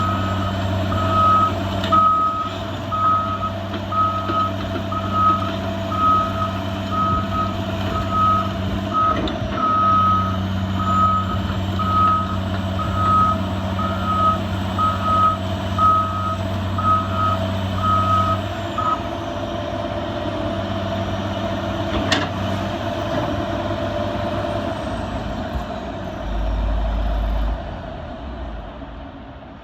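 Caterpillar 345CL hydraulic excavator's diesel engine running steadily while its travel alarm beeps repeatedly, a bit more than once a second; the alarm stops about two-thirds of the way through as the engine note changes, and a sharp clack and a short low thud come later.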